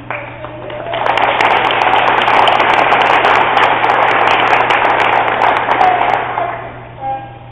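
Audience applause: many people clapping, starting about a second in and dying away after about five seconds.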